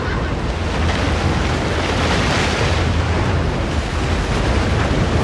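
Film sound effect of a rushing water vortex: a loud, continuous roar of swirling water and wind over a deep rumble, swelling about halfway through.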